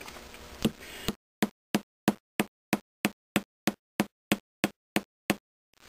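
Ball peen hammer tapping steadily, about three taps a second, on gasket material laid over the cast-iron exhaust manifold flange of a 1937 Maytag twin-cylinder engine's cylinder. The taps press the flange's outline into the material to cut a manifold gasket.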